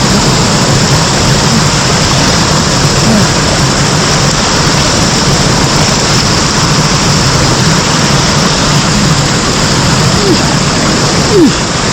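Close, steady roar of a mountain-stream waterfall pouring down rock.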